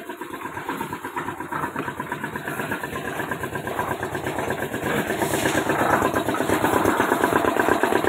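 A motor running steadily with a fast, even throb, growing louder over the last few seconds.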